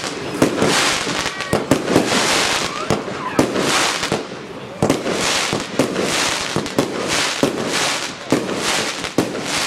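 Multi-shot fireworks compound cake firing shot after shot. There are sharp launch thumps about one to two a second, each with a short hissing burst.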